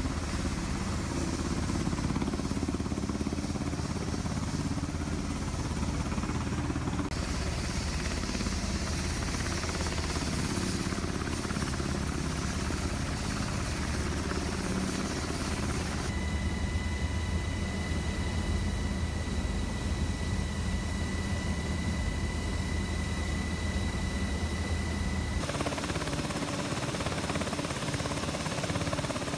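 Navy helicopter running close by: a steady, heavy rotor and engine drone that changes abruptly three times. Through the middle stretch a high, steady whine sits above it.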